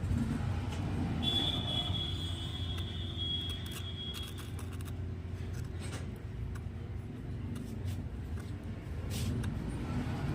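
Steady low rumble of road traffic. About a second in, a thin high tone starts and holds for about three seconds, with a few faint clicks scattered through.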